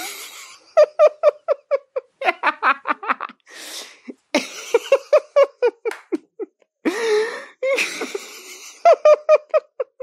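A man laughing in fast, high-pitched 'ha-ha-ha' runs of about five pulses a second, three runs in all, each taken up after a loud gasping in-breath.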